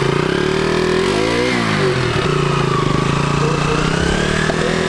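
Motorcycle engine idling, revved once about a second and a half in, the pitch rising and falling back.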